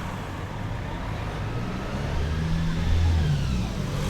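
City street traffic: a motor vehicle's engine rumble swells and peaks about three seconds in, over a steady background of road traffic noise.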